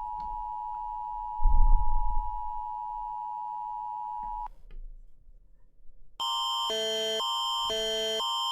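A steady emergency-alert attention tone holds until about four and a half seconds in, with a brief low rumble about a second and a half in. After a short pause, the Canadian Alert Ready attention signal starts: two chords of electronic tones alternating about twice a second over a constant high tone.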